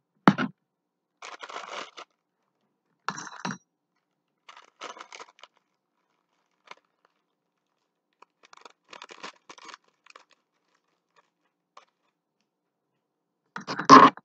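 A plastic bag crinkling in short rustling bursts as it is handled and snipped open with scissors. A louder clatter comes just before the end.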